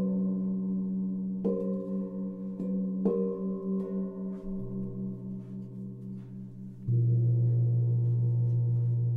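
Hanging gongs struck with a soft mallet: three strikes in the first few seconds over long ringing tones that pulse slowly. About seven seconds in, a louder, deeper tone comes in suddenly and holds.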